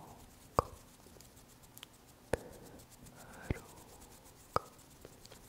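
Four sharp close-miked clicks about a second apart, the loudest just after the start, over faint breathy whispering.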